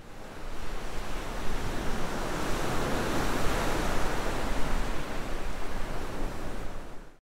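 Sound of ocean surf: a steady wash of waves that fades in over about the first second, holds, then stops quickly near the end.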